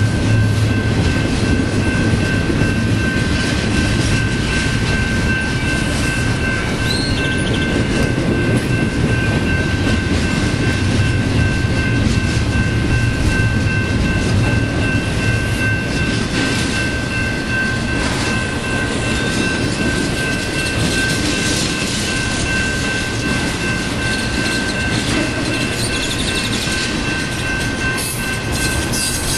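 BNSF intermodal freight train rolling past, double-stack container cars and then trailer-carrying flatcars, making a steady rumble of wheels on rail. A steady high-pitched tone rings through it, and a few sharp clicks come near the end.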